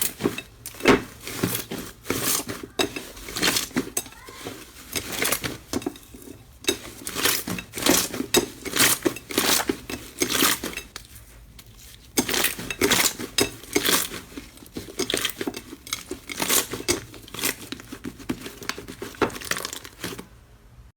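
Slime being squished and pressed by hand: rapid, irregular sticky clicks and crackles, several a second.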